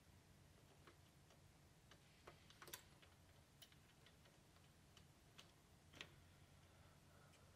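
Near silence, with a handful of faint, scattered small clicks from the throttle slide and cable being worked down into a pocket bike's carburettor.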